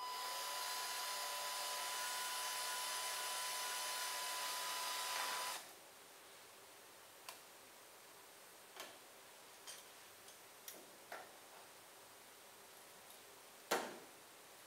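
Handheld electric drill running steadily with a high whine for about five and a half seconds, drilling out a rivet on a wingtip light, then stopping abruptly. A few light clicks follow, and one louder knock near the end.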